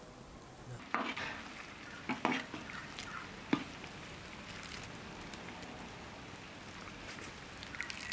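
A metal spoon stirring a large aluminium pan of zucchini jam, knocking and scraping against the pan several times in the first few seconds and again near the end, over a steady low hiss.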